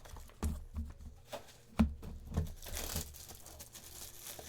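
Card-box packaging being crinkled and torn open by hand, with irregular knocks from handling the boxes; a sharp knock a little under two seconds in and a hissing tear around three seconds in.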